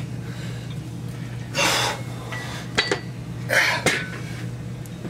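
A lifter's sharp, forceful breaths on each rep of barbell curls, about every two seconds, with a couple of light metal clicks from the bar, over a steady low hum.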